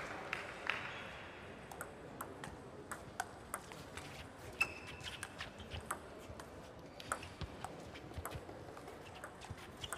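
Table tennis ball clicking back and forth in a doubles rally: sharp, irregular taps of the celluloid ball on rubber paddles and the table top. A brief high squeak comes a little under halfway through.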